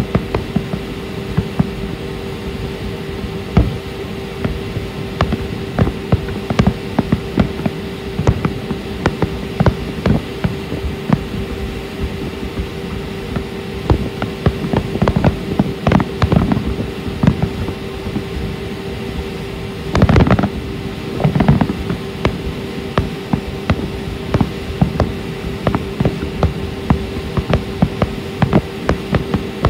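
Fireworks going off in quick succession: a dense string of bangs and crackles, with a louder cluster of bursts about two-thirds of the way through, over a steady hum.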